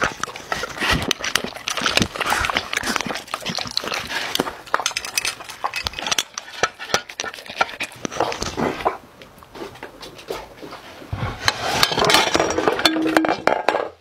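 A dog eating from glass dishes: wet licking and lapping, with kibble and teeth clicking and clinking against the glass. The eating goes quieter for a couple of seconds about two-thirds of the way through, then picks up again.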